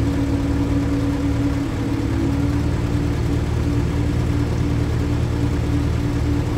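Terex AC100 mobile crane's diesel engine and hydraulics running steadily under load while a counterweight slab is being lowered. The steady hum shifts slightly in pitch about two seconds in.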